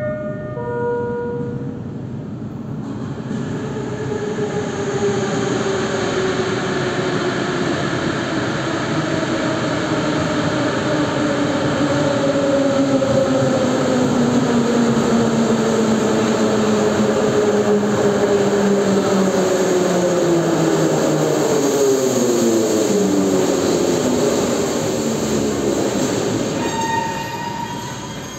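Moscow Metro train arriving at an underground station: the rumble of the wheels builds up as it comes in, and several whining tones fall steadily in pitch as it brakes, dying away as the train stops near the end.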